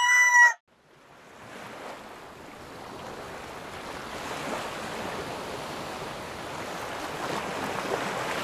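The end of a rooster's crow, a held call that stops about half a second in. After a brief silence, a steady rushing noise fades in and keeps going.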